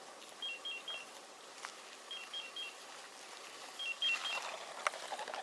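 Hunting dog's beeper collar sounding: four groups of three quick, high two-note beeps, about one group every 1.7 seconds, with faint rustling and a few clicks under them. A steady repeating beep like this is how a beeper collar signals that the dog is holding point on a bird.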